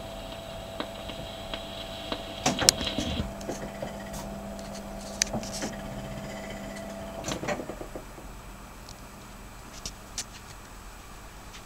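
Wurlitzer 1015 jukebox's record-changing mechanism cycling after a 78 rpm record finishes. A steady motor hum runs under clicks and clunks, the loudest about two and a half seconds in. The hum stops with a clunk about seven and a half seconds in, and a few faint ticks follow.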